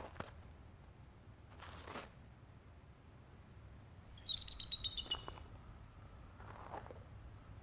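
A bird calls a quick run of high chirps, falling slightly in pitch, about halfway through, over faint outdoor background noise with a couple of soft swishing sounds.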